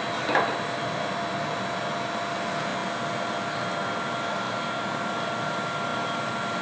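Steady roar of a glassblowing studio's furnaces and ventilation, with a few thin whining tones running through it. A faint knock about a third of a second in.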